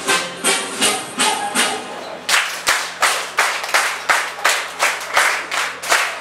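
Dance music playing, its melody dropping away about two seconds in, leaving steady rhythmic clapping on the beat, about three claps a second.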